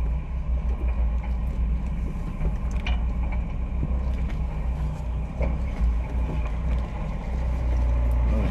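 A 4x4 vehicle's engine runs steadily at low revs as it crawls along a rocky off-road trail, with a couple of brief knocks, about three and five seconds in.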